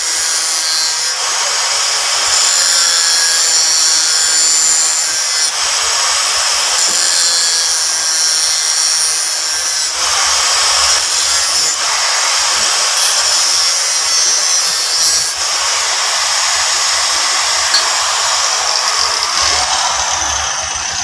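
Handheld angle grinder with a thin cutting disc cutting through a metal tube: a loud, steady, high-pitched grinding hiss whose tone shifts every few seconds, easing slightly near the end.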